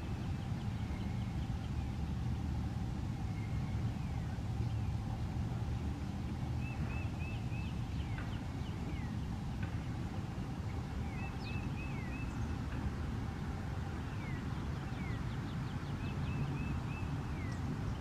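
Steady low outdoor rumble like distant traffic, with small songbirds chirping faintly over it: short high chips in quick runs of three or four, repeated several times, and a few brief downward slurred notes.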